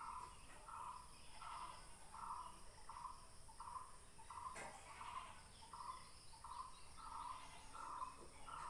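A bird repeating a short call note over and over, roughly every 0.7 seconds, over a faint steady high insect hiss. One soft knock about halfway through.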